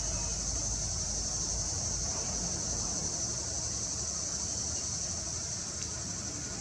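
Steady high-pitched insect drone with a low rumble underneath.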